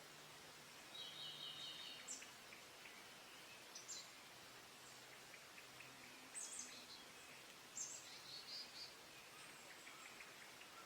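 Faint wild birdsong over a steady hiss of outdoor background noise: several short, sharp high chirps and a couple of brief trills, one about a second in and another around eight seconds.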